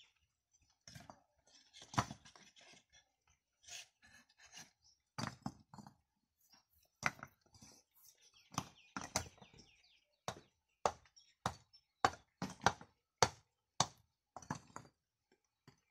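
Hard knocks and clinks of fired clay bricks being set down and tapped into place, scattered at first, then coming about two a second near the end.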